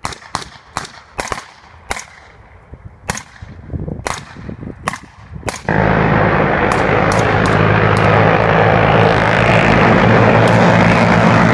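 Rifle shots fired singly and in quick pairs at irregular intervals; then, about five and a half seconds in, miniguns and heavy machine guns open up together in unbroken suppression fire that suddenly fills the sound, with a few single rifle shots still cracking over it.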